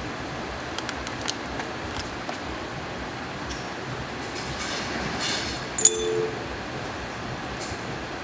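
Crimp connectors and a crimping tool being handled while the marker light's wires are spliced: light scattered clicks and a brief scrape, with one sharp click and a short squeak about six seconds in, over a steady background noise.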